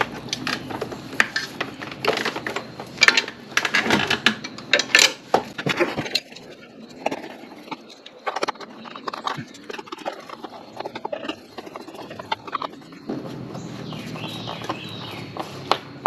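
Quick, irregular clicks and knocks of parts and tools being handled, thinning to scattered taps after about six seconds. A steady hiss comes in near the end.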